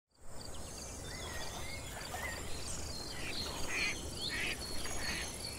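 Outdoor natural ambience: several birds calling in short chirps and whistles, over a steady high trill like insects and a faint low rumble.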